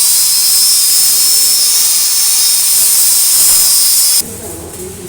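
High-speed grinder running with a loud, high whine and hiss, its pitch steady after spinning up, then cutting off suddenly about four seconds in.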